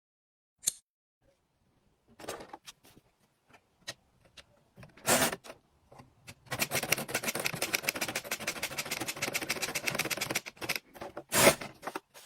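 LEGO plastic pieces clicking and rattling: a few separate clicks, two short louder rattles, and a dense run of rapid clicking lasting about four seconds in the middle.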